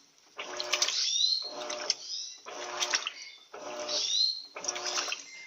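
Turbo LT13B semi-automatic washing machine agitating a load of bedding: the agitator reverses about once a second, each stroke a surge of sloshing water over the motor's hum. Some strokes end in a short, high, squeaky glide.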